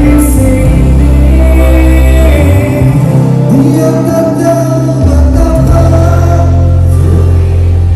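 Loud live band music with singing, played through a stage sound system, over a heavy sustained bass line. The bass drops out for a couple of seconds in the middle, then comes back.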